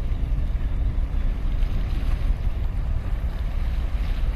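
Steady wind buffeting the microphone, with small waves lapping and splashing against concrete tetrapods along a seawall.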